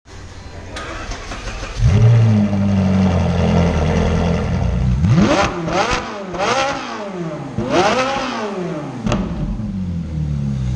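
Ferrari 458's 4.5-litre V8 firing up about two seconds in and settling into a steady idle, then revved hard three times in quick succession before dropping back to idle.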